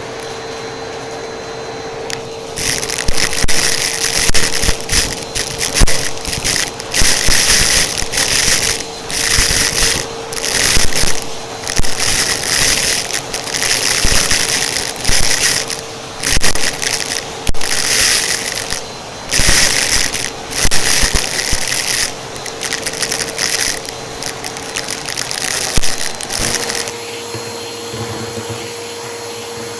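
Vacuum cleaner running with a steady motor hum while its dusting brush attachment is worked over a surface in repeated scraping, rustling strokes every second or so. Near the end the strokes stop, leaving only the motor's steady hum.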